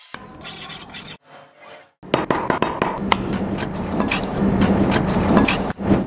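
Kitchen knife scraping scales off a fish: repeated rasping strokes, lighter at first, then loud and rapid from about two seconds in.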